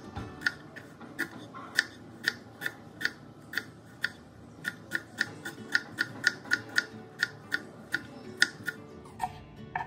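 Kitchen knife chopping onion finely on a cutting board: sharp, evenly spaced taps of the blade on the board, about two to three a second.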